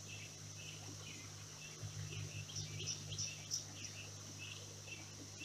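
Steady high-pitched insect drone, with a string of short chirps repeating through it.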